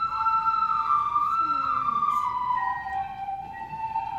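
A group of children playing recorders together in unison, a simple melody of held notes. A phrase begins at the start, and the tune steps down to lower notes about halfway through.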